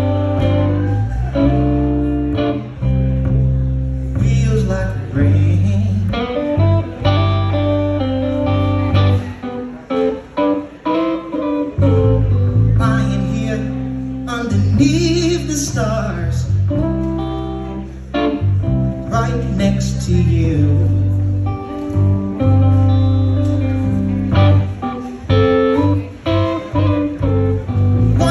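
Live blues band playing: electric guitar over drums and bass, with a man singing.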